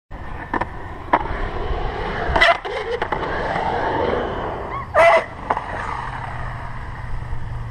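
Skateboard wheels rolling on concrete, broken by several sharp clacks of the board on the concrete, the loudest about two and a half and five seconds in.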